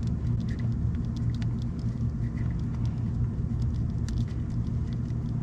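Steady low mechanical rumble, with faint scattered clicks of hand tools working a camshaft position sensor loose.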